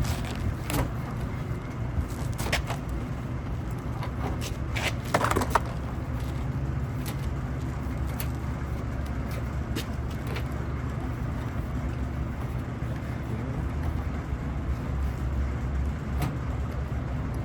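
Steady low mechanical drone, with sharp clicks and knocks of metal parts being handled, most of them in the first six seconds and a couple later.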